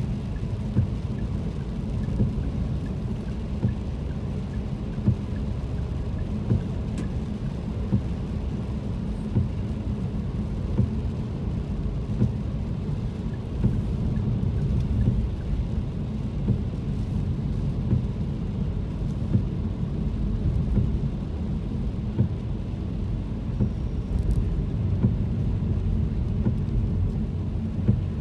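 Car cabin noise while driving in the rain: a steady low rumble of tyres on a wet road and the engine, with rain on the car. A brief knock from the windscreen wipers comes about every second and a half.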